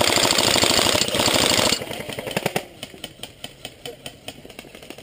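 Airsoft electric gun firing a long full-auto burst of rapid, even clicks for about two seconds. Fainter, scattered rapid firing follows.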